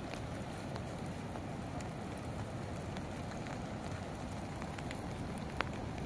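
Steady rain and gusting wind, with a low rumble of wind on the microphone and scattered sharp ticks of drops striking, one louder tick near the end.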